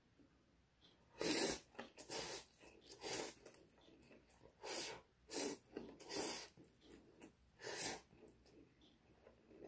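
A person slurping Korean ramyeon noodles off chopsticks, about eight short, loud slurps in quick succession, with chewing between them.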